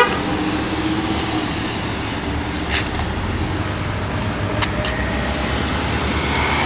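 Road traffic going by, a steady noise of vehicle engines and tyres.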